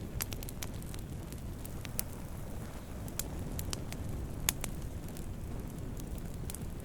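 Wood campfire burning with a steady low rumble of flames and frequent sharp crackles and pops, the loudest pop about four and a half seconds in.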